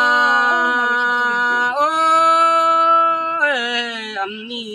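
Unaccompanied Thái folk singing: a single voice holds long, drawn-out notes. The pitch steps up about two seconds in and slides down near the end.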